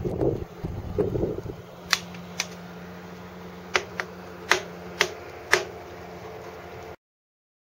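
Wind buffeting the microphone for about a second and a half, then a steady low hum with six sharp, separate clicks. The sound cuts off abruptly a little before the end.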